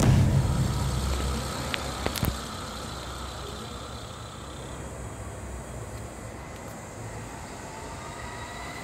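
Steady low rumble of road traffic, louder for the first second or so, with a couple of faint clicks about two seconds in.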